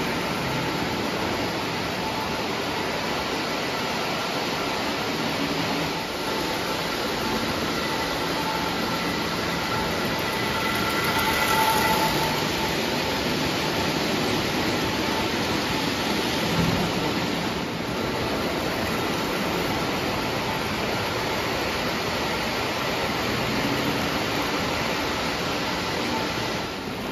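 Lionel O-gauge model trains running on three-rail tubular steel track: a steady rolling rumble of wheels on the rails with a faint high whine, swelling as a passenger train passes close about eleven to twelve seconds in.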